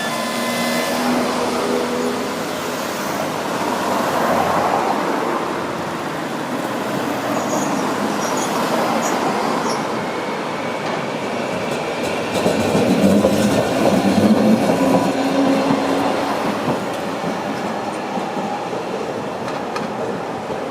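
Sapporo streetcar running along its street track, with the steady noise of wheels on rail and traction motor. The sound grows loudest about two-thirds of the way through, and a faint high wheel squeal comes in the middle.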